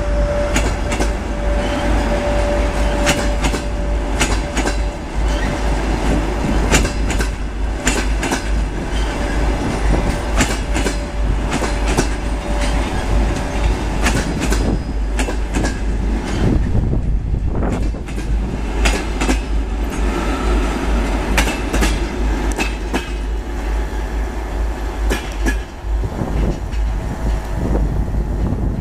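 Passenger train coaches rolling past as the train pulls out of the station, wheels clacking over the rail joints in a steady run of clicks over a continuous rumble. A thin steady whine sounds through the first half and fades out about halfway.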